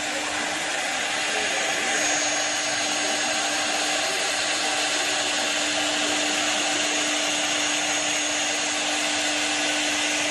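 CNC wood lathe running: a steady hiss of machine and cutting noise over a constant low hum, a little louder from about two seconds in.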